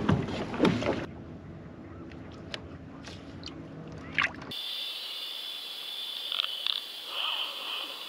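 Pedal-drive kayak backing up: water sloshing around the hull with a few sharp clicks from the drive and gear. About four and a half seconds in it cuts to underwater sound: a steady thin hiss with a high ringing and a few brief squeaks.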